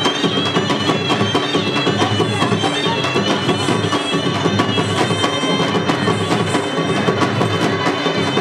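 Live traditional folk dance music: drums beaten in a steady, fast rhythm under a high, wavering wind-instrument melody.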